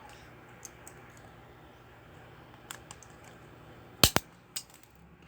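A few small sharp clicks of hard parts and hand tools being handled while a toy car's small motor is taken apart, with a loud double click about four seconds in.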